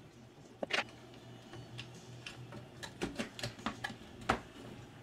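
Hard plastic parts of a cassette-deck transport clicking and knocking as its cover is fitted back on and the mechanism is handled: a sharp click under a second in, a run of lighter clicks about three seconds in, and the loudest click just past four seconds.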